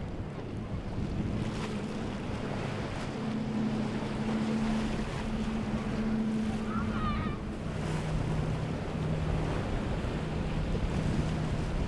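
Boat engines droning as powerboats run fast through choppy water, over rushing water and spray and wind on the microphone. The engine note drops to a lower pitch about eight seconds in.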